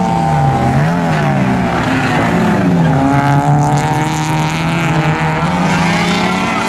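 Two racing cars' engines revving hard side by side, their pitch climbing and dropping again and again as they shift gears and brake, the two engine notes overlapping and crossing.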